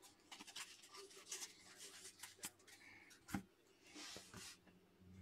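Faint rustling and light tapping of trading cards being handled and set down on a table, with a soft knock about three and a half seconds in and a brief swish just after.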